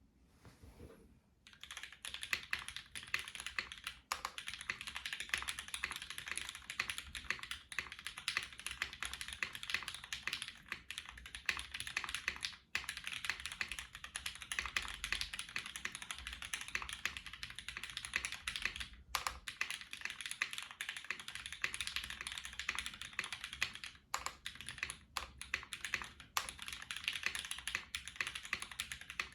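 Continuous fast typing on a custom mechanical keyboard with lubed Cherry MX Black Ultraglide linear switches, aluminium plate, double O-ring mount and GMK keycaps: a dense run of keystroke clacks that starts about a second and a half in, with a few brief pauses.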